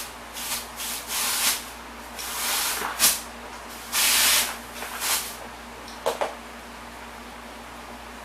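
Compressed air hissing in short, irregular bursts, as from an air chuck filling an old bicycle tire, with two sharp clicks about six seconds in.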